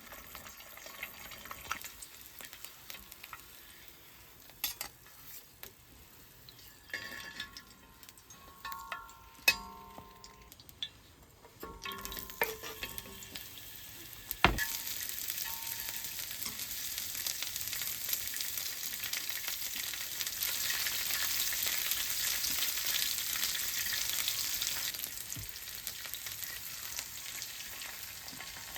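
Food frying and sizzling in a pan. In the first half there are scattered clinks and knocks of utensils, with short ringing tones. A sharp knock comes about halfway, and then a steady sizzle that grows louder and eases off a little near the end.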